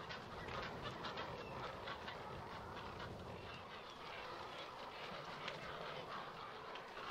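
Chorus of many waterbirds calling at once in a nesting colony of herons, egrets, spoonbills and cormorants: a continuous mix of short, overlapping calls.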